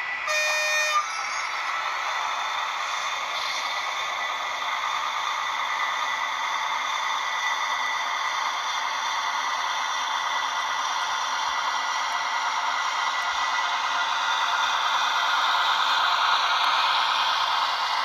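H0-scale model of a DB class 245 diesel locomotive hauling Intercity coaches: a short horn blast from its sound decoder in the first second, then the steady whir of the model running along the track, growing louder as the coaches pass close near the end.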